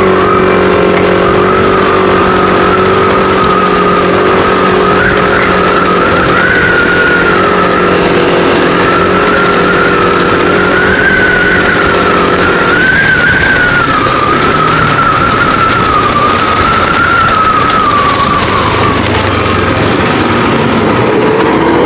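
Yamaha scooter's engine running while riding, with a steady whine that wavers up and down in pitch; the lower engine hum drops away about 13 seconds in.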